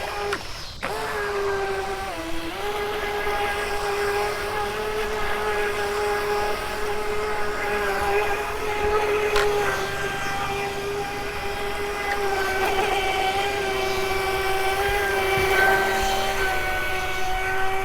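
Small RC racing boat's electric motor whining steadily at speed, a single held pitch that dips briefly about two seconds in as the throttle eases, then holds again.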